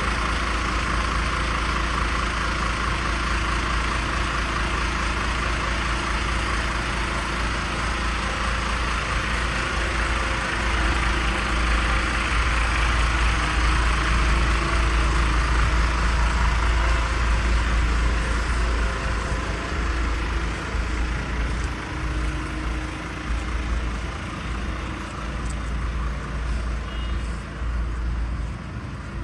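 A truck running, with its engine and steady road noise, growing louder about a third of the way in and easing off somewhat later on.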